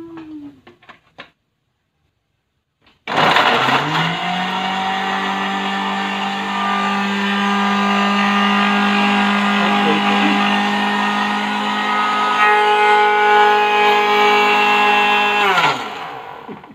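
A few light clicks as the lid goes onto a Philips countertop blender jug. About three seconds in, the blender motor spins up and runs steadily for about twelve seconds, grinding a spice paste of tomatoes, shallots and garlic, then winds down near the end.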